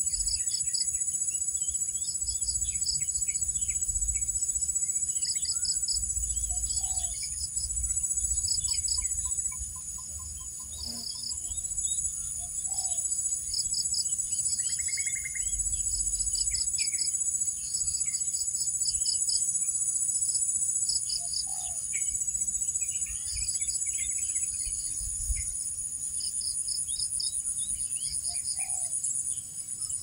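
Evening insect chorus: a steady high shrill of crickets with a pulsed cricket chirp repeating about once a second. Scattered short bird calls sound through it, along with a short lower call every several seconds and a low rumble underneath.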